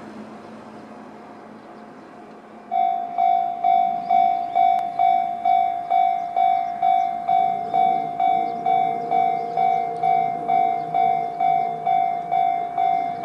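Japanese railway level-crossing electronic warning bell in the JR standard tone. It is faint at first, then about three seconds in it starts sounding loudly and steadily at about two strokes a second. A second, lower-pitched tone joins in about halfway through.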